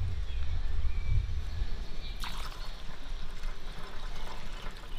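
Petrol being poured from a plastic measuring jug into a lawnmower's fuel tank, a steady trickle of liquid.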